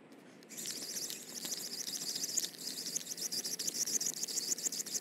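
Daiwa Tatula Elite baitcasting reel cranked fast, winding in braided line and a frog lure: a rapid, high-pitched ticking whirr that starts about half a second in.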